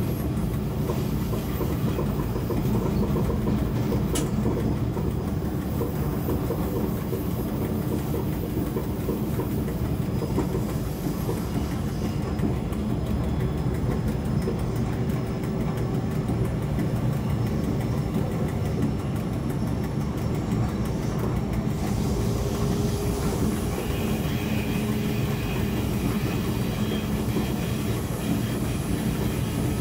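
Passenger train hauled by an SBB Re 420 electric locomotive running steadily along the track, heard from the leading cab, with one sharp click about four seconds in. A faint high whine joins in for the last third.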